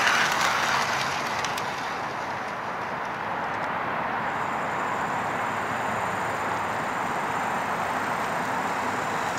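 HO-scale model train cars rolling past on their track, with light clicking over the rail joints for about the first second and a half, then easing into a steady rolling hum.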